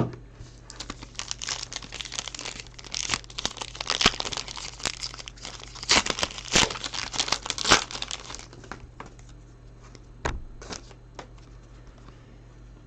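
A foil trading-card pack wrapper crinkling and tearing as it is ripped open, for about eight seconds, followed by a few light clicks and rustles.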